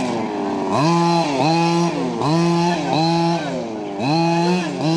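HPI Baja 5SC's small two-stroke petrol engine buzzing and revving up and down in quick throttle bursts, about seven times, as the RC truck accelerates and lets off.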